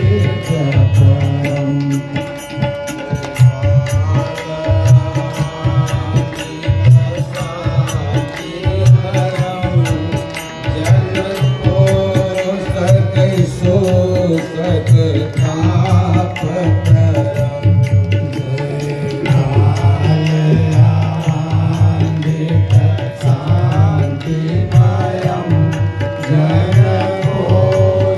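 Loud Indian devotional music: a steady drum beat under a sustained melody, with frequent sharp metallic clicks on top.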